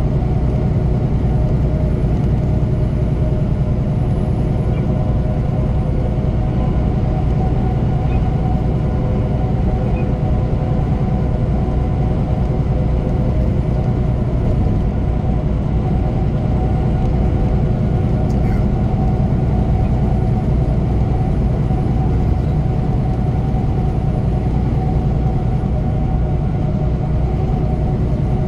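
Semi truck's diesel engine and tyres at steady highway speed, heard inside the cab: a constant low drone with a steady hum over it.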